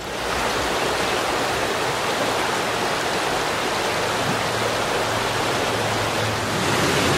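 Steady rush of a fast, shallow creek running over rocks.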